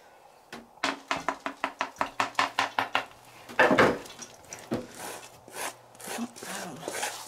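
Crushed peanuts being tapped and scraped off onto a dish with a kitchen utensil: a quick run of taps, about six a second, then a louder scrape about halfway through, then scattered taps.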